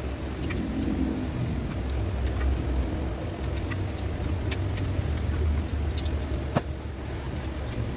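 A steady low rumble runs throughout. Over it come light clicks and taps as the rice cooker's casing, power cord and tools are handled, with one sharper click about six and a half seconds in.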